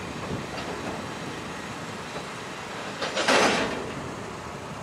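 Taki 1900 cement tank wagons rolling slowly along yard track, a steady rumble of wheels on rail, with one short loud burst of noise about three seconds in.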